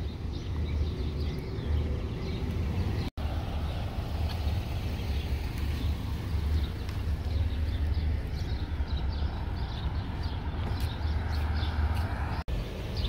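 Outdoor street ambience: wind rumbling on the microphone, with faint high bird chirps. The sound drops out briefly twice.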